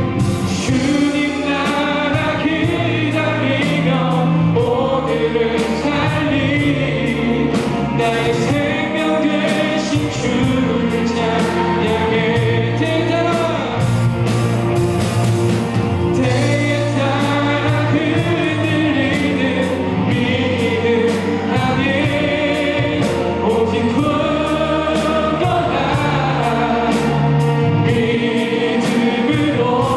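Live contemporary worship song: several voices singing together over a band of drums, bass, electric guitar, piano and keys, with a steady cymbal beat.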